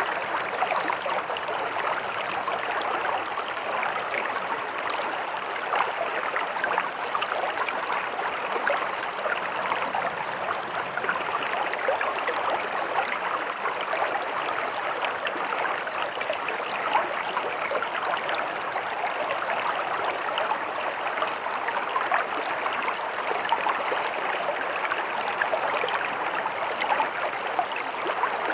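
Stream water running steadily over stones, a continuous rushing with fine bubbling and splashing detail.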